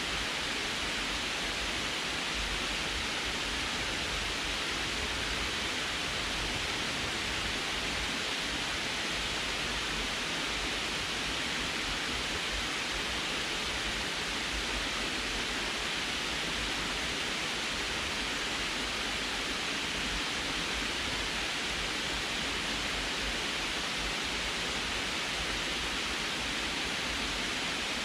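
Water pouring over a sloped concrete spillway dam and splashing into the pool at its foot: a steady, even rush of falling water.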